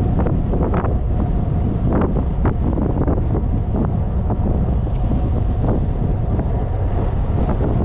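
Wind buffeting the microphone of a camera carried on a moving bicycle: a loud, steady rumble with frequent short knocks and rattles through it.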